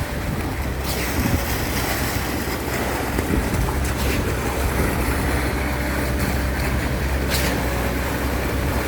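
A vehicle engine running steadily under rushing wind and road noise, with a few faint clicks.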